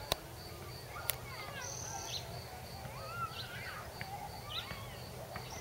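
Outdoor ambience of birds calling with short rising and falling chirps, over a steady high-pitched pulsing in the background. There are two sharp clicks in the first second or so.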